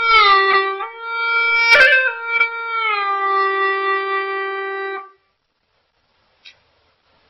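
Hulusi (Dai gourd flute) playing a slow melodic phrase with heavy downward pitch slides between notes. It ends on a long held low note that stops about five seconds in.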